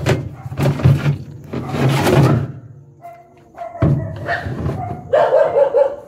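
Knocks and thumps of parts being handled inside a top-loading washing machine's cabinet, several sharp strikes in the first couple of seconds, with a dog barking from about four seconds in.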